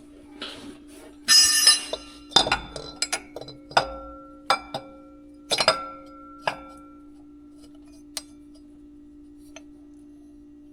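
Metal hand tools clinking and rattling: a burst of rattling about a second in, then a string of sharp clinks that ring briefly, growing sparse in the last few seconds. A steady low hum runs underneath.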